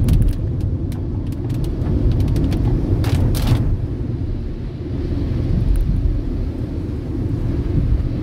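Car cabin in heavy rain: the steady low rumble of tyres and engine on a wet road, with raindrops ticking on the glass at the start and a brief hiss about three seconds in.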